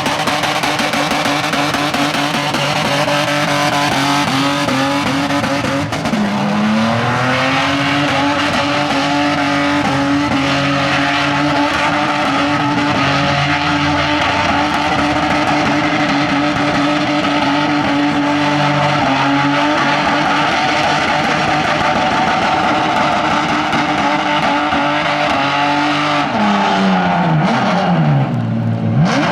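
Car engine held at high revs in a sustained drift-style run, with tyres squealing. The revs dip briefly about six seconds in, then drop sharply and climb back near the end.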